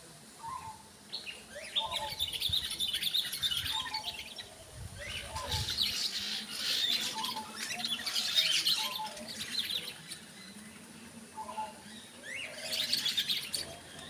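Aviary parrots chirping and squawking in several loud bursts of chatter, with a softer, lower call coming back every second or two.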